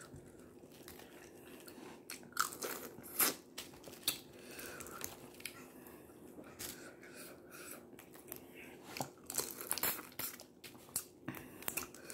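Close-up eating sounds of boiled crawfish: shells cracking and snapping as they are peeled by hand, with chewing and lip smacks. The sounds are irregular short clicks, the loudest about three seconds in and again near the end.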